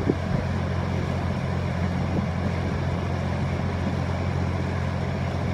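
Heavy equipment engine idling steadily, a low even drone.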